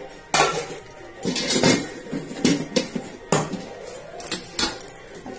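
Metal spoon knocking and scraping against a metal cooking pot as raw rice is stirred into a wet masala: a run of irregular sharp clinks.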